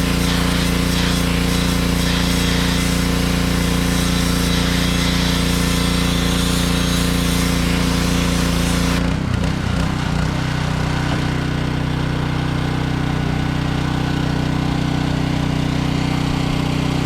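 Pressure washer running and spraying through a sandblasting attachment, a steady engine note under a loud hissing jet. About nine seconds in the spray stops and the engine settles to a lower pitch, still running.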